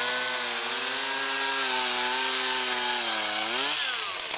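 A gas ice auger's two-stroke engine runs at steady high revs while drilling a hole in the ice. Near the end it revs up sharply, then drops back toward idle.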